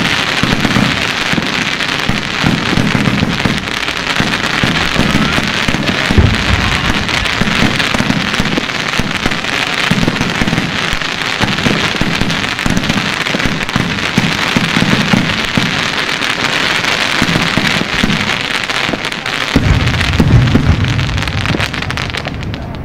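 Xplode Fireworks 'Tons of Gold' consumer fireworks cake firing shot after shot: quick dull launch thumps under a steady, dense crackle of gold effects bursting in the air. A heavier run of thumps comes near the end.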